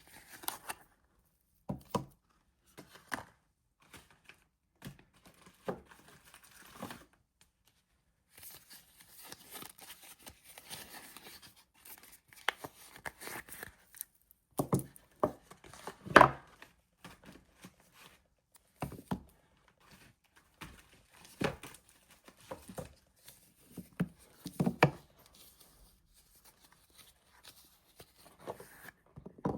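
Soap bar wrappers being torn open and crinkled by hand, in irregular sharp rips and rustles with a longer run of steady rustling about a third of the way in.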